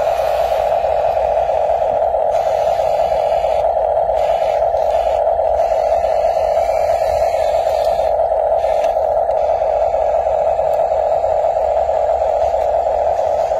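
A steady, unchanging static-like hiss sitting in the middle range, at a constant level throughout with no rises, falls or separate events.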